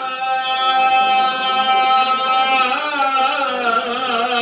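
A man chanting into a handheld microphone as he reads from a book. He holds one steady note for about two and a half seconds, then moves into wavering, ornamented turns.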